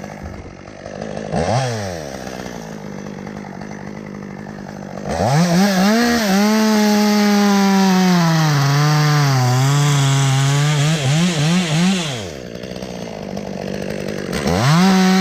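Two-stroke chainsaw revving and cutting into wood. Through a long cut starting about five seconds in, the engine's pitch sags under the load; then come a few quick throttle blips, a brief idle, and another rev near the end.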